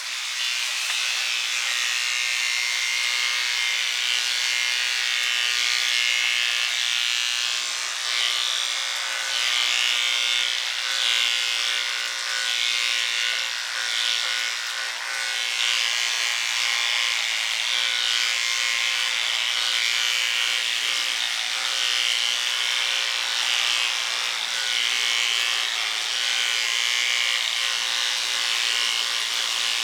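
Electric hair clippers running with a steady buzz while clipping a dog's hair.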